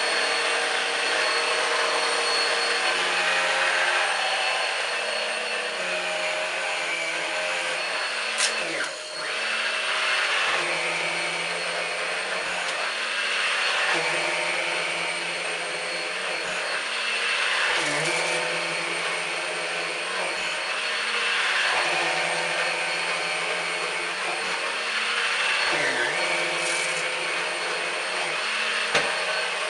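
Numatic Henry Quick HEN70 cordless stick vacuum running steadily with a motor whine over rushing air. Its pitch dips briefly about three times as the load changes, and there are a couple of sharp clicks.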